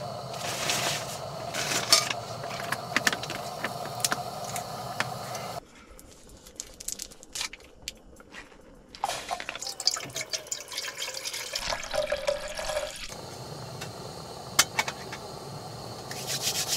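Water bubbling and dripping in a pot on a canister gas camping stove, with light metal clinks. The sound drops off abruptly about a third of the way in and then picks up again.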